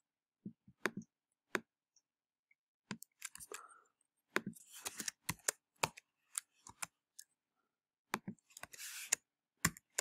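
Scattered keystrokes on a computer keyboard and mouse clicks, irregular and sparse, coming in little runs with short pauses between them.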